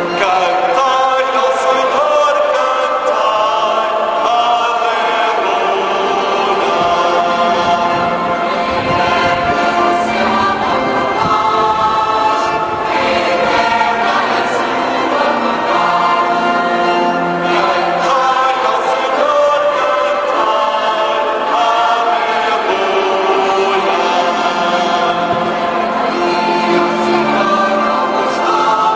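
A choir singing a hymn in long, held notes, relayed through the stadium's loudspeakers.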